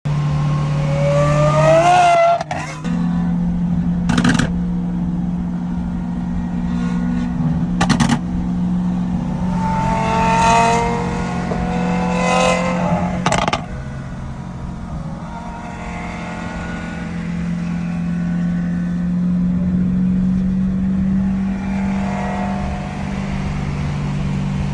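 Lamborghini Aventador SVJ's V12 pulling hard, its revs rising and cutting off sharply at the shifts, with a few sharp cracks from the exhaust, then settling into a steady cruising drone.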